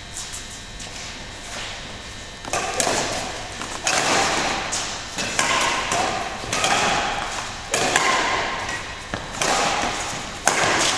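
Badminton rackets striking shuttlecocks in repeated sharp hits about a second apart, echoing in a large sports hall. The background din grows louder about two and a half seconds in.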